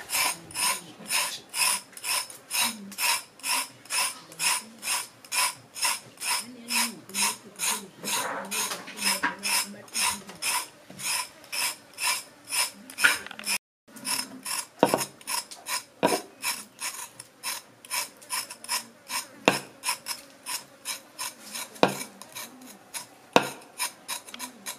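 A large kitchen knife blade scraping the skin off a raw carrot in quick rhythmic strokes, about three a second. The strokes break off briefly just past halfway, and a few sharper clicks come in the second half.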